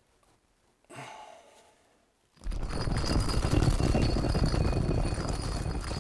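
Logo-reveal sound effect: a loud, dense whoosh that starts suddenly about two and a half seconds in, heavy in the low end with a steady high ring over it.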